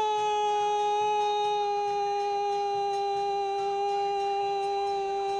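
A football commentator's drawn-out goal cry, one long shouted note held at an almost constant pitch and sinking very slightly.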